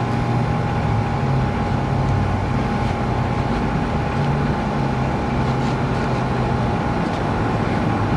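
Steady motor drone with a constant hum, as of an engine running nearby, with a few faint clicks over it.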